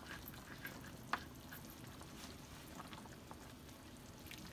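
Ladle pressing cooked guava pulp through a wire-mesh strainer, the juice dripping into a pot of simmering broth: faint wet liquid sounds with scattered light clicks of the ladle on the strainer, the sharpest about a second in.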